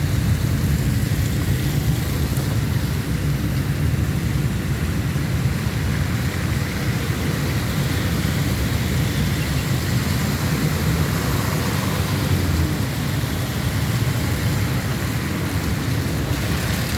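Steady rainfall with a constant low rumble running under it.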